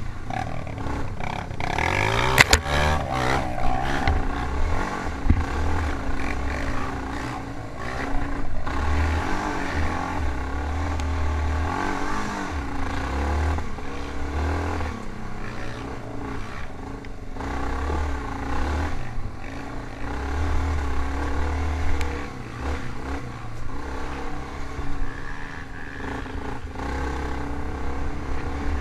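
Single-cylinder off-road engine of a quad or dirt bike, heard from on board, revving up and down as it is ridden hard along a dirt trail, with a sharp rev about two seconds in. Wind buffets the microphone and the machine clatters over bumps.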